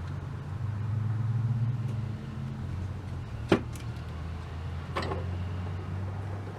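Steady low electrical mains hum from a powered tube tester, a little louder in the first two seconds. Two sharp clicks come in the middle, as the tester's selector switches are set for the next tube.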